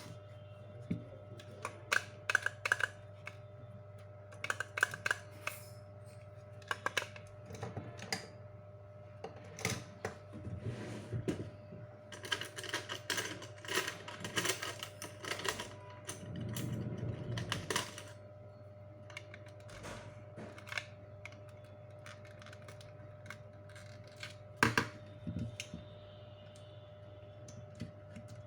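Irregular light clicks, taps and clatter of small hard objects being handled, busiest in the middle stretch, over a steady low hum.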